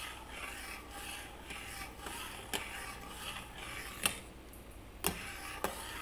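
Metal slotted spoon stirring hot milk in a stainless steel saucepan, scraping round the bottom about twice a second, with a few sharp clinks against the pan in the second half.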